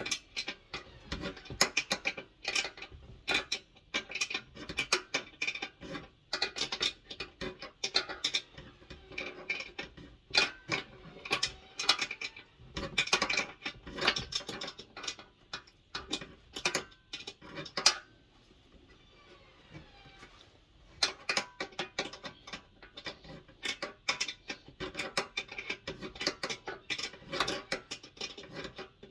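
Hand tools and bolts clicking and clinking against metal as the bolts on a diesel heater are undone, in quick irregular strokes, with a pause of a few seconds past the middle.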